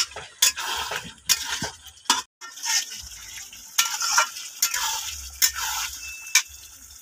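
Flat spatula stirring and scraping chicken curry around a metal kadai, the strokes coming about once a second over a steady sizzle, as the water released by the meat cooks off. There is a brief gap a little after two seconds in.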